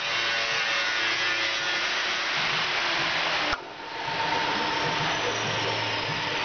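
Startrite Mercury pillar drill's motor running with a steady whir. About three and a half seconds in the sound breaks off with a sharp click, then the motor comes back up to speed over about half a second, now with a steady whine in it.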